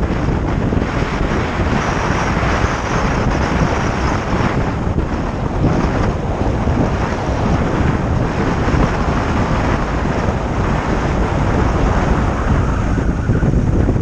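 Steady wind buffeting the microphone of a camera on a moving VW T6 camper van, covering the vehicle's own sound.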